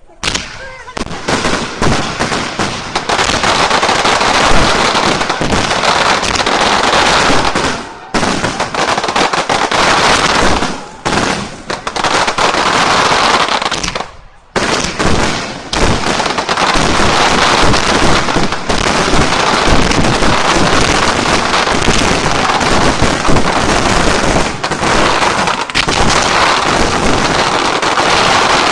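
Fireworks display: a loud, dense barrage of bangs and crackling bursts that runs almost without a break, letting up briefly three times in the first half.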